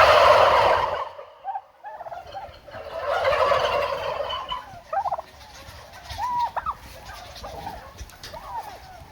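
A flock of turkeys gobbling together in a loud burst, then a second chorus about three seconds in, then scattered single calls. It is shock-gobbling in answer to a man's shout.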